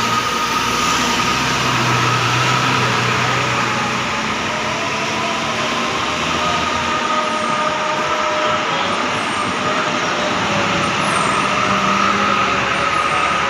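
Steady hiss of rain on wet pavement, with large coach buses' diesel engines running low as they pull past and a steady high whine over it.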